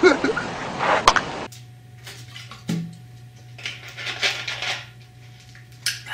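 Loud, noisy audio that cuts off abruptly about a second and a half in, then a person drinking from a bottle: a few short gulps and breaths over a steady electrical hum.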